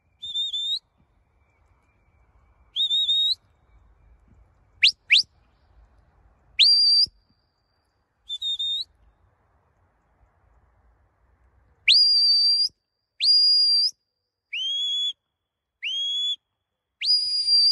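Sheepdog handler's whistle commands to a working dog: about eleven short, high whistle blasts, several starting with a sharp upward slide, including a quick pair of upward-sweeping whistles about five seconds in and a faster run of held notes in the second half.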